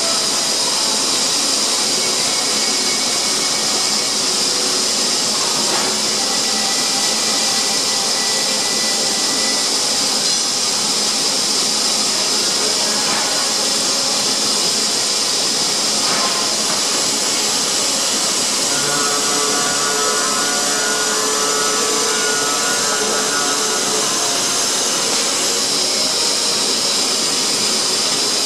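Automatic circular sawing machine running with a steady, high-pitched hiss, with faint tones coming and going, clearest about two-thirds of the way in.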